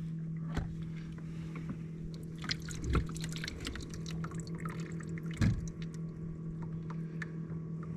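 Water dripping and lapping around a kayak, with scattered small clicks and two louder knocks, about three and five and a half seconds in, from handling tackle on board, over a steady low hum.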